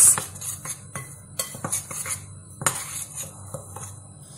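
Metal spoon stirring dry flour, sugar and baking powder in a white ceramic bowl: soft scraping with scattered clinks of the spoon against the bowl, the loudest right at the start.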